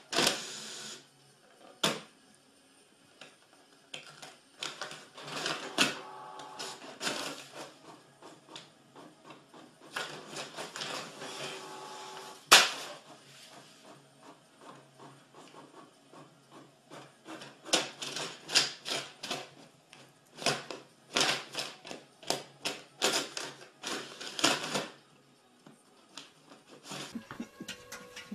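Desktop printer running: bursts of mechanical whirring and runs of rapid clicking from its paper feed and print mechanism, with one sharp, loud clack about halfway through.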